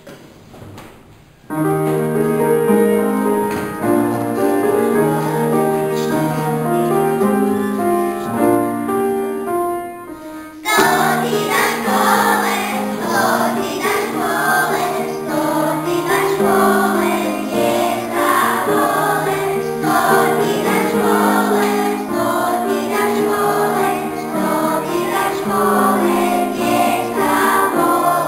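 An instrumental introduction of held notes, then about ten seconds in a class of young children begins singing a song together in unison over the music.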